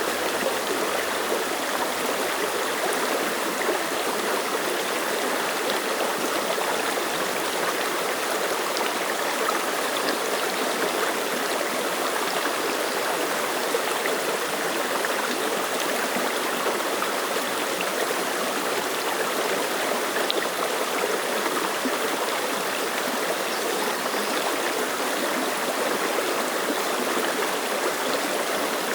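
Mountain stream flowing over rocks, a steady rushing and burbling of water.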